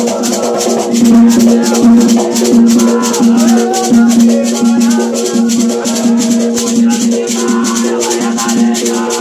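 A Quimbanda ponto cantado: voices sing a wavering melody over fast, even shaker strokes and a steady held low note.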